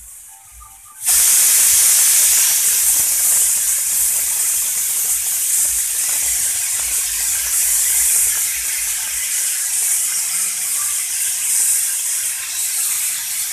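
Aluminium pressure cooker whistling: steam hisses hard out of the weighted vent valve, starting about a second in and running on steadily. The whistle is the sign that the cooker is up to pressure.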